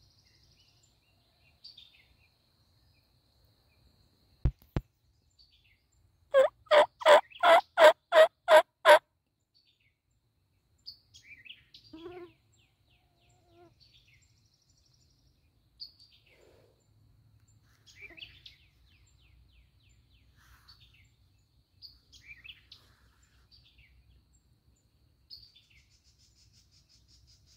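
Wild turkey yelping: a loud run of about eight evenly spaced notes, about three a second, a few seconds in. Small songbirds chirp faintly around it.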